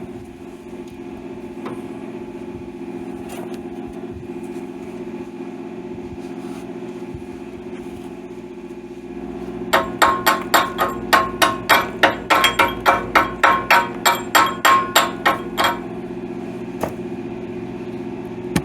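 Hammer striking steel rapidly, about four or five ringing blows a second, for some six seconds starting near the middle. A steady machine hum runs underneath.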